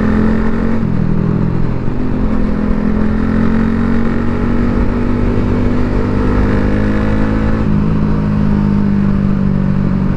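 A Yamaha Sniper 150's single-cylinder four-stroke engine running while being ridden, through a brand-new Gori Pipe short aftermarket muffler with its silencer insert in and a big-elbow header. The exhaust note is bassy and steady, and its pitch shifts about a second in and again near the end.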